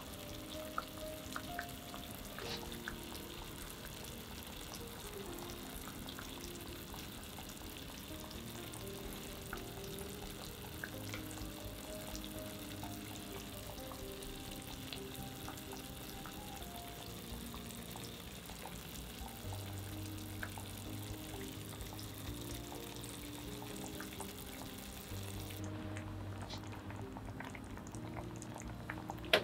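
Sukiyaki broth (warishita) simmering in a shallow pot with a steady sizzle, and a few light clicks as ingredients are set in. Soft background music runs underneath. The sizzle cuts out abruptly near the end.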